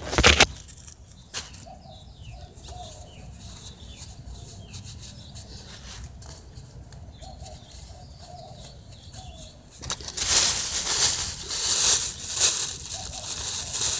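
Handling noise on a phone microphone: a couple of knocks at the start, then low muffled rubbing, turning to a loud rustling hiss about ten seconds in. Faint short calls sound in the background.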